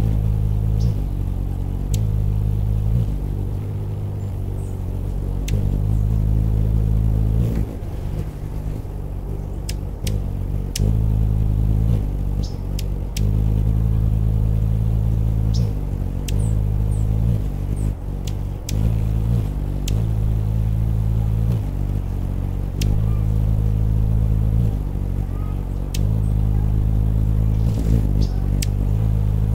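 Anna's hummingbird's wings humming as it hovers: a loud, low, steady buzz that shifts back and forth between two slightly different pitches every second or two, as the wingbeat alternates between about 50 and 60 beats a second. A few faint sharp ticks sound over it.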